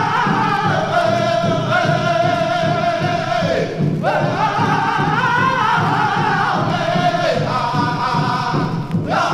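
Background music: a long, wavering sung line held over a low drone, each phrase ending in a downward slide, about four seconds in and again near the end.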